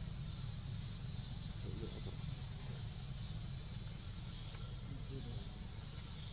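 Outdoor ambience: a steady low rumble with a bird repeating a short, high call that dips and rises in pitch, about once a second.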